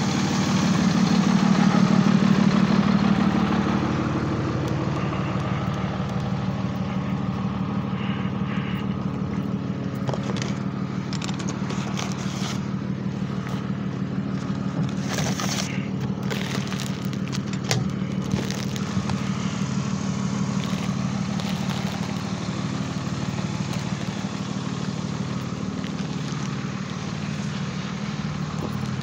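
A vehicle engine running steadily, loudest in the first few seconds, with a few brief clicks in the middle.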